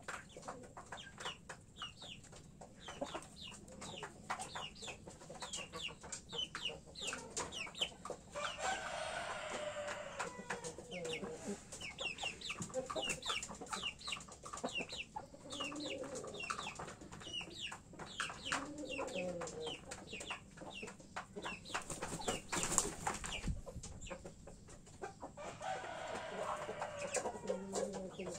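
A flock of roosters and hens clucking and calling in a pen, over rapid, high, short peeping throughout, likely from a chick. Several longer pitched calls come and go, and a brief loud noisy burst is heard about three-quarters of the way through.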